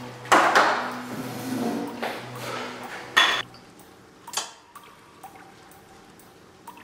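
Water splashing into a drinking glass over soft music, then a sharp glass clink with a brief ring about three seconds in. A second knock follows, then a few faint clicks as a plastic ice tray is handled.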